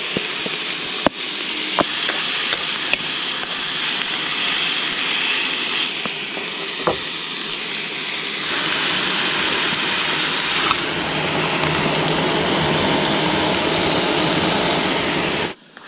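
Steak and diced vegetables sizzling in a skillet on a camp stove, a steady frying hiss with a few light clicks. The sizzle gets louder about halfway through, then cuts off suddenly just before the end.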